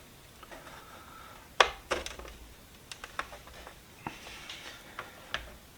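Small metal toolbox hasp being fitted to a rusted steel toolbox: a scattering of sharp, light metallic clicks and taps, about seven of them spread across a few seconds.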